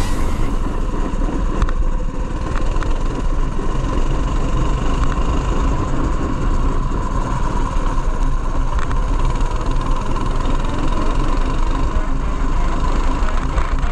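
Go-kart engine running steadily as the kart drives around the track, heard from the driver's seat.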